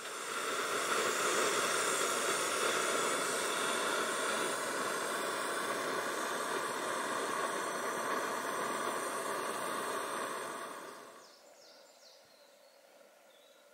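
Gas canister camping stove burning under a pot: a steady burner hiss that dies away about eleven seconds in.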